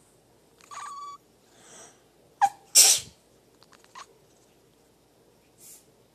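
A person sneezes once, loudly, about three seconds in: a sharp catch of breath, then the explosive sneeze.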